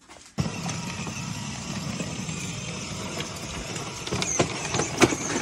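Children's electric ride-on toy tractor driving along a garden path: its motor and gearbox running, with the plastic wheels rumbling over the ground. It starts abruptly just after the beginning, with a few knocks and a high whine coming in about four seconds in.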